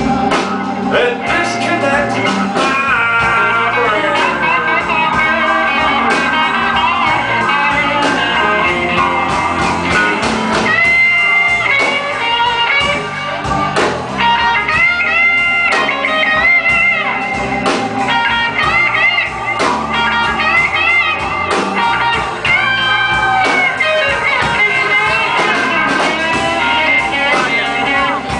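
Blues band playing live: electric guitar lines with bent notes over a steady drum beat.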